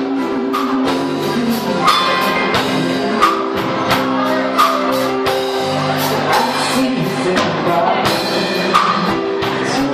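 Live pop band playing an upbeat song with a steady drum beat, keyboards and a male singer, heard across a large hall.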